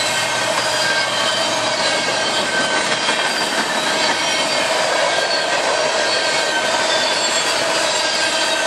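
Empty steel coal gondolas of a freight train rolling past at close range: a steady rush of wheels on rail, with faint, thin wheel-squeal tones held over it.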